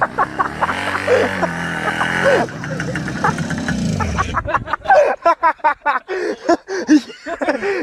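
A motor engine running, then winding down steadily in pitch over a couple of seconds. Short, sharp voice-like cries and knocks follow in the second half.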